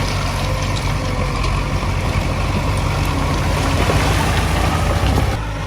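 Diesel engine of earthmoving machinery running steadily with a low drone, dipping slightly near the end.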